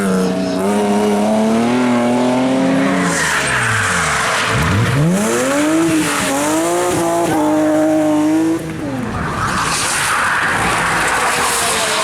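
Rally car engine at full throttle on a special stage, revving high, dropping sharply in pitch as it lifts off about three seconds in, then climbing again through the revs before cutting off abruptly. A hiss of sliding tyres follows near the end.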